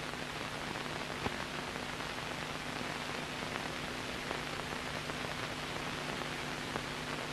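Steady hiss and crackle of an old film soundtrack, with scattered small clicks, one sharper click about a second in, and a faint low hum underneath.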